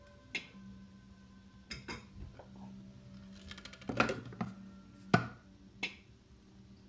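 Plastic lid and measuring cup of a Thermomix being fitted onto the mixing bowl: a run of plastic clicks and knocks, with a quick rattle of small clicks leading into the loudest knock about four seconds in, and another loud knock just after five seconds. A low steady hum runs under the middle.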